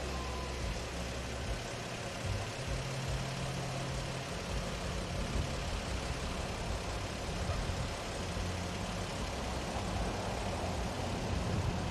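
Steady engine hum and road noise of a moving car, with the low hum shifting a little in pitch now and then.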